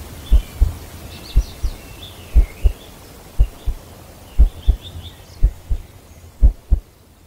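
Heartbeat sound effect: a low double thump, lub-dub, about once a second, with faint bird chirps behind it.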